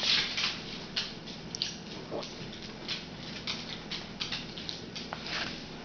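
A sleeping toddler chewing with his mouth, making small irregular wet smacks and clicks, about two a second.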